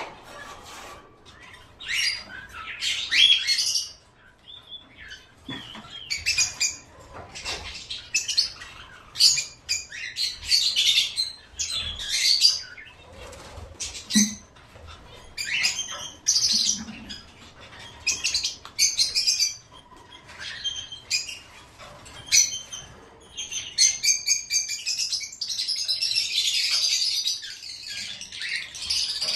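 Caged pet birds chirping and chattering in repeated short bursts, with wing flapping, building to a dense stretch of chatter near the end.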